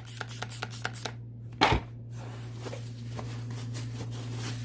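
Quick back-and-forth rubbing strokes on the split plastic fan blade, about five or six a second, as its surface is prepared for gluing. A single knock comes near the middle, the strokes then go on more faintly, and a steady low hum runs underneath.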